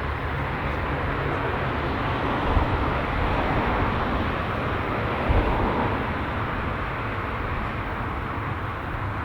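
Steady noise of a Lockheed KC-130J Hercules's four Rolls-Royce AE 2100 turboprop engines, with a low rumble underneath. Two brief thumps come about two and a half and five seconds in.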